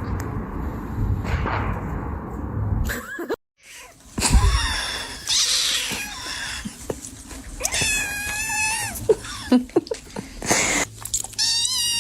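Domestic cat meowing, several drawn-out, wavering meows in the second half. They follow a low rumbling noise that cuts off suddenly about three seconds in.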